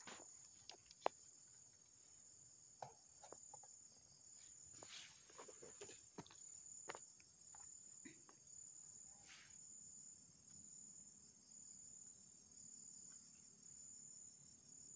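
Faint, steady high-pitched chirring of insects, pulsing evenly. Over it, in the first half, a few soft clicks and knocks from hands working at a motorcycle's rear chain and sprocket.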